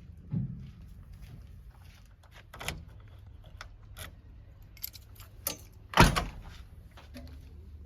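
Heavy diesel machinery running with a steady low hum, amid scattered metallic clanks and rattles of loose stones and soil being handled. One loud bang comes about six seconds in.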